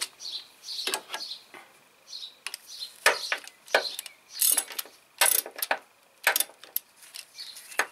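Ratchet wrench clicking in short, irregular runs as it turns a bolt on the front of an engine, with metal-on-metal clicks from the tool.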